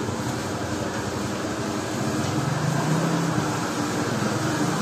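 Steady ambient noise of a busy market alley: a continuous hiss with a low hum underneath and no distinct events.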